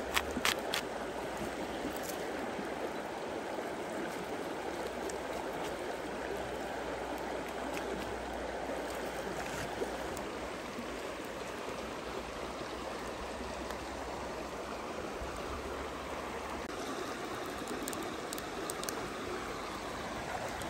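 A shallow stream running steadily over rocks. In the first second a few sharp knocks come from a cleaver cutting down through a stuffed pork roll.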